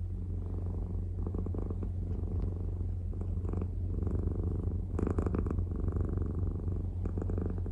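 A domestic cat purring steadily, very close to the microphone, a low fast rumble that swells roughly once a second with its breathing. There is one short, louder noise about five seconds in.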